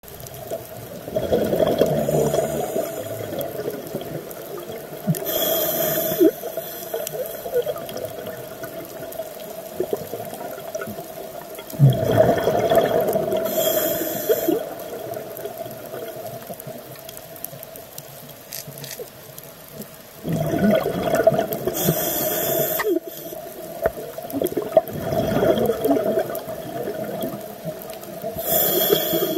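A scuba diver breathing through a regulator underwater. About four breaths come several seconds apart, each a bubbling, gurgling rush of exhaled air with a short hiss from the regulator.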